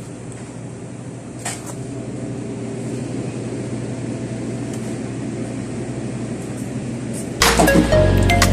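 Steady mechanical hum with a hiss, the background drone of a convenience store, with a single click about a second and a half in. Music with a strong bass starts loudly near the end.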